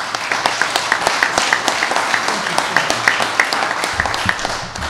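Audience applauding, a dense patter of many hands clapping that starts abruptly and holds steady, thinning out in the last second.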